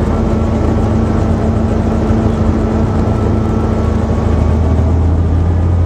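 Helicopter engine and rotors running, heard from inside the cabin as a loud, steady low drone. A higher hum in it fades about four and a half seconds in while the deepest part of the drone grows stronger.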